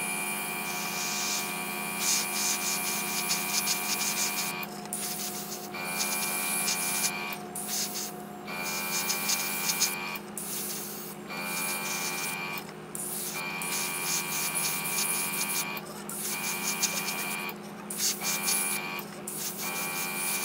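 Airbrush hissing as thinned red paint is sprayed, over the steady whine of its air compressor. The sound breaks off briefly about a dozen times.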